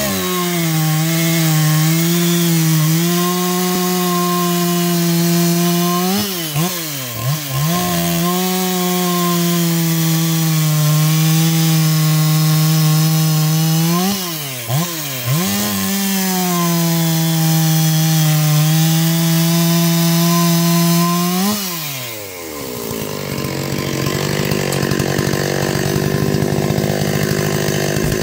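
Large Stihl two-stroke chainsaw, running on 93-octane pump gas mixed with Motul 800 oil, cutting through a thick wooden block at full throttle. It holds a steady pitch under load through three long cuts, and the revs climb sharply as each cut frees the chain, with quick throttle blips between cuts. About 22 seconds in it drops back to idle.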